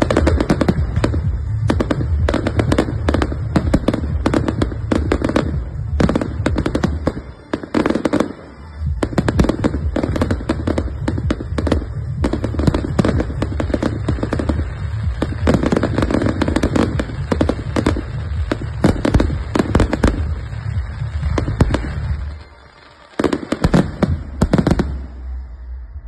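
Firework display finale: a dense, rapid barrage of aerial shell and cake bursts, the bangs overlapping into a continuous rumble, with a brief lull about eight seconds in. Near the end the barrage stops, a last short flurry of bangs follows, and then it dies away.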